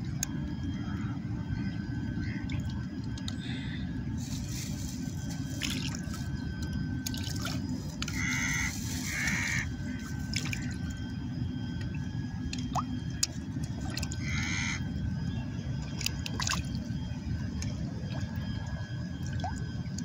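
Small splashes and drips of water at the shoreline as fish nibble at floating pieces of bread, over a steady low rumble.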